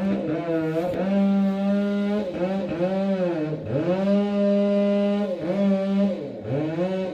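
Chainsaw running at high speed, its pitch sagging sharply and recovering about five times as the engine is throttled or loaded.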